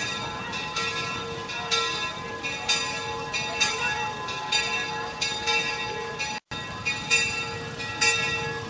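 Old Antipolo church bell ringing, struck about once a second, each stroke still humming under the next. The sound cuts out for a split second about six and a half seconds in.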